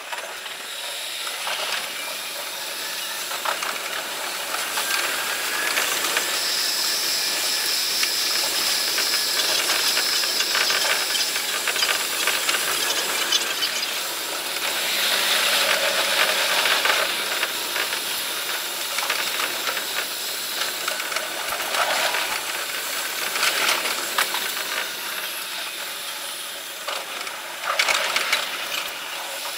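The running sound of an electric commuter train heard from the driver's cab, played at five times speed, so it comes across as a steady high hiss with quick rattling clicks. A thin high whine sounds from about six to eleven seconds in, and the noise swells for a couple of seconds around the middle.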